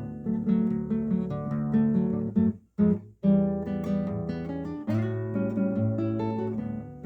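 Acoustic guitar playing plucked and strummed chords, with a short break in the sound about two and a half seconds in.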